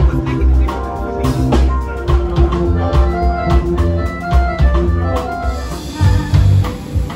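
Live band music with a steady beat on drum kit, with electric guitars and keyboard. A little over five seconds in the sound turns brighter and fuller.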